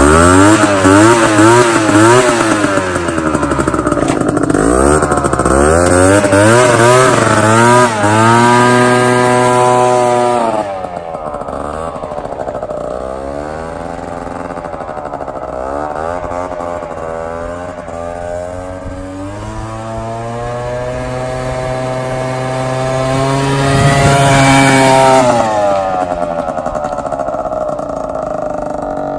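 Two-stroke scooter engine with a traffic cone fitted over its exhaust tailpipe, revved repeatedly in short blips while standing, then climbing in pitch as it pulls away. About ten seconds in it drops in loudness as the scooter rides off, then swells again with rising revs near the end as it comes back closer, and fades.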